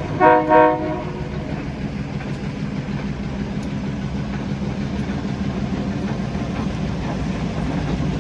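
Diesel freight locomotive's horn sounding two short blasts within the first second, then the locomotive's engine running with a steady low drone.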